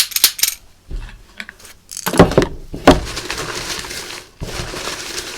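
Rapid clicking at the start, two loud knocks about two and three seconds in, then a steady rattling clatter of small objects being handled.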